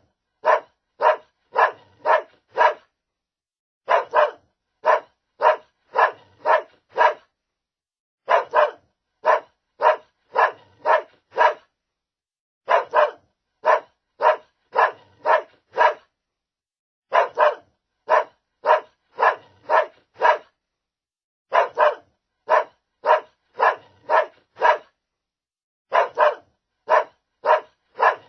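A dog barking in runs of about six sharp barks, roughly two a second, with a short pause between runs. The same run repeats over and over.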